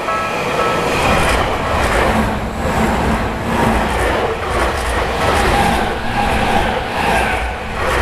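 Tokyu Toyoko Line electric train passing close by over a level crossing: a steady rush and rumble of wheels on rail. The crossing's warning bell fades under it within about the first second.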